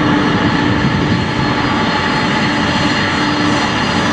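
The two Pratt & Whitney PW4056 turbofan engines of a Boeing 767-300ER running at taxi power. It is a steady rushing jet noise with a thin high whine and a low hum that comes and goes.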